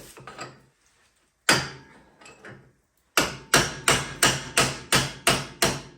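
Hammer blows on a stuck prop shaft U-joint: one strike, then after a pause a steady run of about eight sharp strikes, roughly three a second. The joint is seized and not budging despite penetrating fluid.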